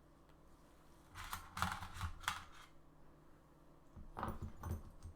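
Small clicks and light knocks of AR-15 trigger parts being handled on a workbench, in two short bursts.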